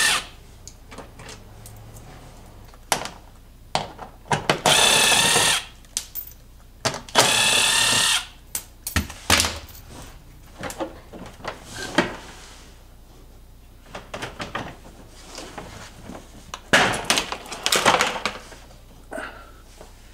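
A cordless drill spinning out the bolts that hold a car's plastic belly pan, in two short runs of whining, with clicks and knocks of bolts and plastic between them. Near the end comes a flurry of knocks and scrapes as the belly pan comes down.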